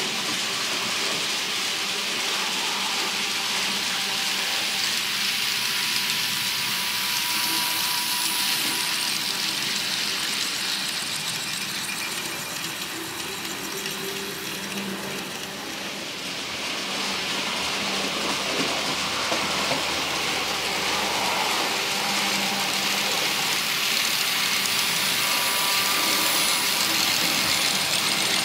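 TT-scale model train of tank wagons rolling along metal track: a steady rushing rattle of small wheels on the rails, with a faint motor whine underneath.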